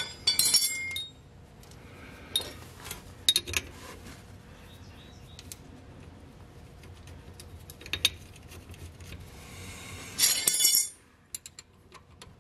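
Metal hand tools clinking and clicking at the rear axle's pinion flange as sockets and a small ratchet wrench are fitted and worked. There is a quick cluster of clicks at the start, scattered single clinks, and another busy run of clicks about ten seconds in.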